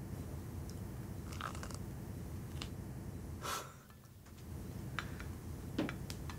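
Light clinks of cutlery on a plate now and then during a meal, with a short sniff about halfway, over a steady low room hum.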